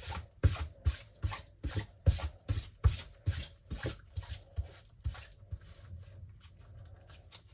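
Rapid back-and-forth scraping strokes on the edge of a cured resin piece, about two and a half strokes a second, stopping about five and a half seconds in.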